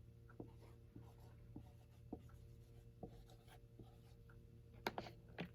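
Faint writing sounds, a pen or marker scratching and tapping, with a couple of sharper clicks near the end over a low steady hum.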